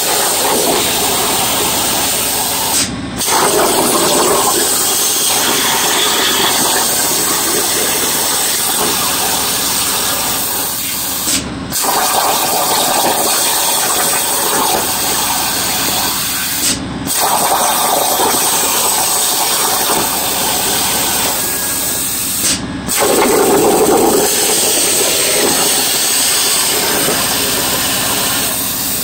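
Air plasma torch on a Langmuir Crossfire CNC table cutting 18-gauge sheet steel: a loud, steady hiss of arc and air, broken four times by a brief dip as the arc stops between cuts.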